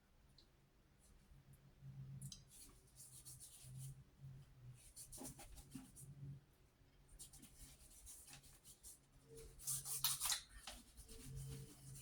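Faint handling and rubbing sounds of hands working aftershave onto freshly shaved skin, a series of light rustles and pats, with a louder cluster of pats about ten seconds in.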